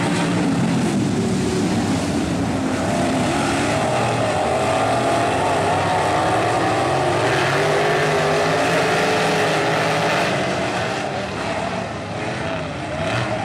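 Two sprint cars' V8 engines running on a dirt oval just after being push-started, their pitch wavering up and down as they circle the track. Slightly quieter near the end.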